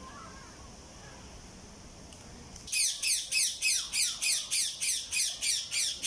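A bird calling in a rapid run of loud, high, downward-sweeping squawks, about four a second, starting nearly three seconds in.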